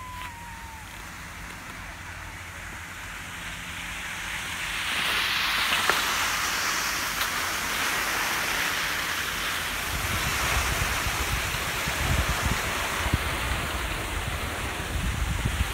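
Steady hiss of skis sliding over packed snow, mixed with wind buffeting the microphone. It grows louder about a third of the way in, and low gusty rumbles join in the second half.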